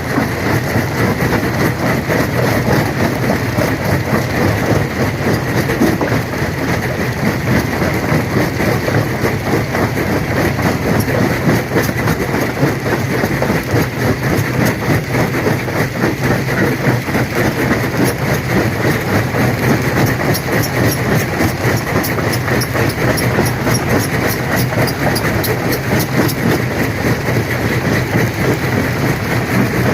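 Industrial stone crusher running and crushing rock: a steady low machine hum under continuous dense clattering and grinding of stones, with sharper rock cracks and ticks coming through more in the second half.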